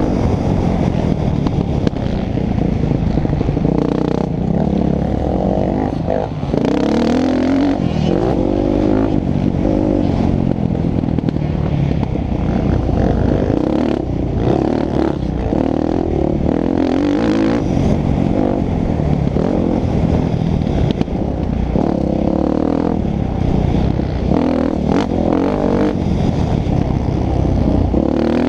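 Motocross dirt bike engine revving hard and backing off over and over as it is ridden around a dirt track, heard close up from the bike itself.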